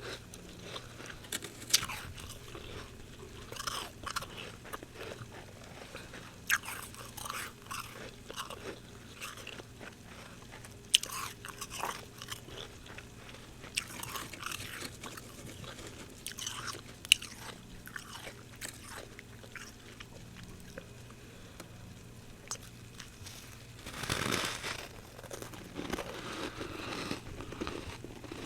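Fresh humidifier frost being bitten and chewed: irregular sharp crunches throughout, with a denser burst of crunching about 24 seconds in.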